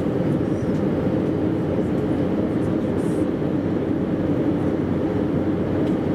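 Steady engine and airflow roar in the passenger cabin of an Airbus A320, even and unbroken.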